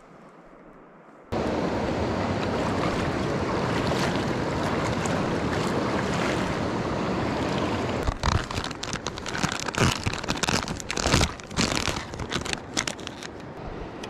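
A steady rushing noise starts suddenly about a second in. From about eight seconds it gives way to irregular crinkling and rustling of a plastic soft-bait package being handled close up.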